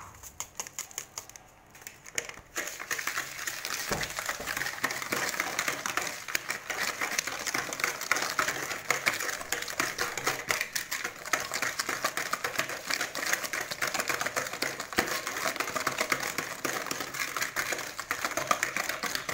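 Wire whisk beating egg and sugar in a bowl: a rapid, steady clatter of the wires clicking and scraping against the bowl, starting about two and a half seconds in. Before that there is soft rustling as a small paper sachet is emptied into the bowl.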